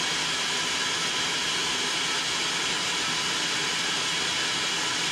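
Blender motor running steadily at high speed with a high whine, blending a cilantro chimichurri sauce while olive oil is added.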